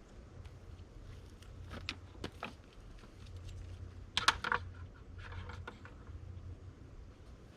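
Light clicks and rattles of fine copper wire being handled, with a cluster of sharper, louder clicks about four seconds in and a brief rustle after it.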